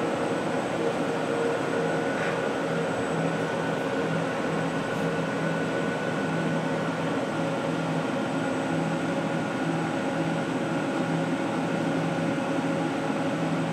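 Universal Instruments Advantis AX-72 pick-and-place machine running: a steady mechanical whir with several constant tones and a low hum that drops out for a moment every few seconds.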